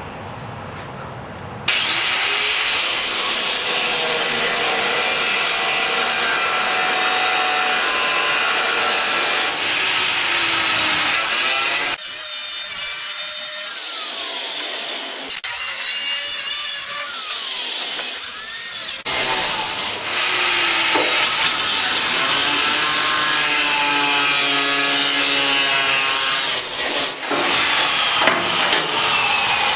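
Power tool cutting through the welded-in metal of a rusted car fender. It starts about two seconds in and runs steadily, with the pitch of the motor whining up and down as it bites, and a brief let-up near the end.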